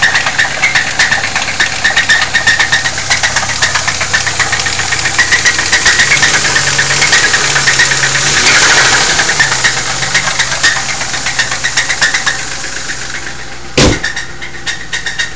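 Lincoln LS engine running with a loud, rapid rod knock from a spun bearing. The knocking swells in the middle, and there is one heavy bang near the end, after which it runs quieter.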